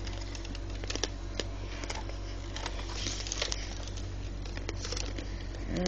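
Handling noise: scattered light clicks and rustles of a plastic toy blaster and the phone being handled close to the microphone, over a steady low hum.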